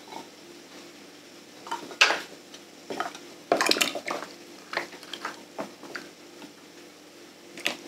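Pieces of purple carrot dropped into a glass jar, clinking against the glass in a series of short knocks with pauses between.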